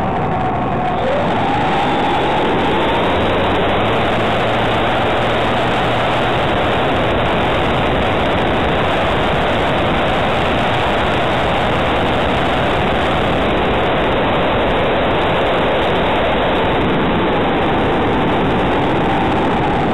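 Rush of air and motor-and-propeller noise picked up by a small camera riding on a radio-controlled model aeroplane in flight: a loud, steady rushing, with a faint whine that rises in pitch about a second in and falls again near the end.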